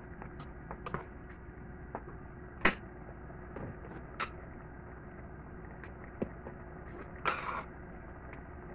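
Wooden spatula knocking and scraping against a stainless steel pot as shrimp are stirred, in irregular taps, the sharpest about two and a half seconds in, and a longer scrape about seven seconds in, over a steady faint hum.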